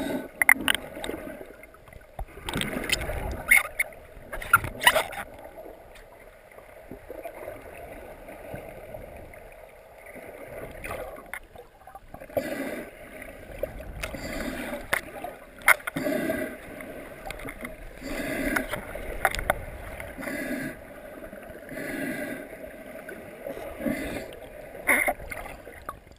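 Muffled underwater sound of a snorkeler swimming: water gurgling and sloshing around the submerged camera, with a few sharp splashes in the first five seconds and a regular pulsing about every one and a half seconds from halfway on.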